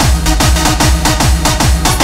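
Electronic dance music with a steady, fast kick-drum beat.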